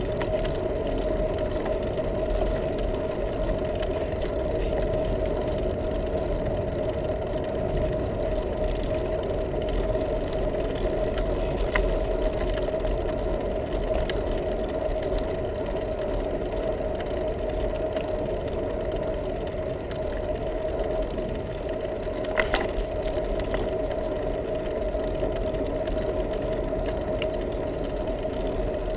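Riding noise of a bicycle rolling along an asphalt lane, picked up by a camera mounted on the bike: a steady rumble of tyres and wind with a constant hum. One sharp knock stands out late on, like the bike jolting over a bump.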